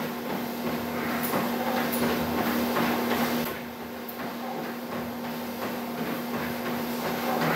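Spirit treadmill running with a steady motor hum and belt whir, while a Bernese Mountain Dog puppy's paws knock irregularly on the moving belt.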